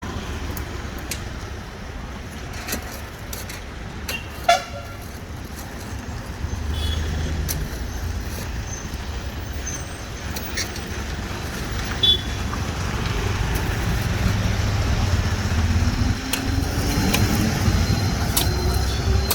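Road traffic running steadily, with trucks giving brief, shrill horn toots, once about four and a half seconds in and again about twelve seconds in. Over the last few seconds an engine note rises steadily in pitch as a vehicle speeds up.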